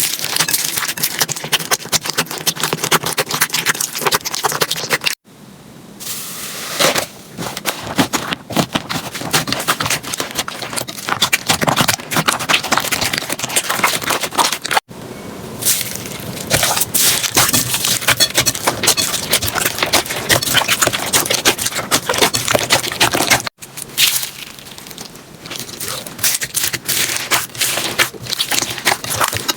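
Slime being squeezed and worked by hand: dense crackling with many quick clicks and pops. There are several short takes, and the sound breaks off abruptly three times between them.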